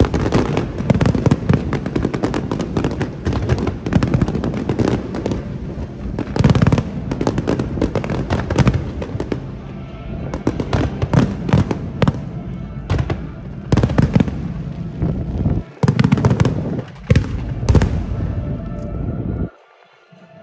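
Aerial fireworks display in a dense barrage of overlapping bangs and crackling bursts, several a second. It cuts off suddenly near the end.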